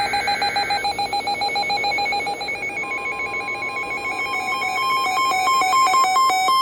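NOAA Weather Radio emergency alert tones: the end of a buzzy SAME data burst, then a fast warbling alarm. About three seconds in, the steady warning alarm tone joins it, and near the end it breaks into quick beeps alternating between two pitches.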